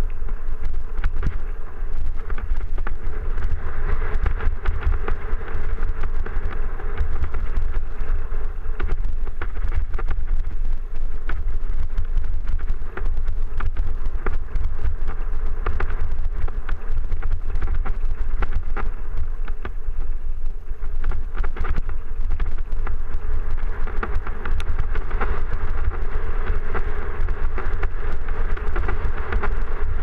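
Mountain bike rolling fast over a loose rocky gravel trail, heard from a helmet camera: tyres crunching and the bike rattling in a dense run of small clicks, over a heavy, steady rumble of wind on the microphone.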